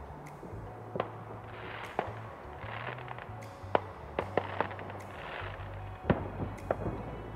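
Fireworks going off, with sharp bangs about once a second and two spells of dense crackling, over music with a steady bass line.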